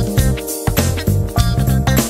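A funk groove: a backing track of electric guitar and bass with a drum kit played along to it, the drum and cymbal hits landing in a steady rhythm. The kit is a Pearl drum set with Zildjian cymbals.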